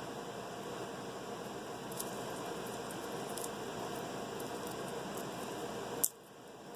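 Steady background hiss with a few faint light clicks and rustles from handling garlic cloves and their papery skins. A sharp click comes about six seconds in, after which the background drops quieter.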